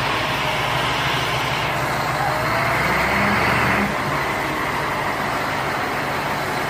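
Zoomlion QY130V truck crane's diesel engine running steadily as the crane moves slowly forward.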